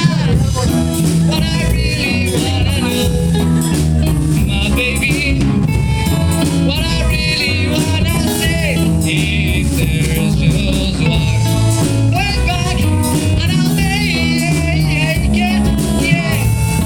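A band playing a song, singing over instruments with a steady beat.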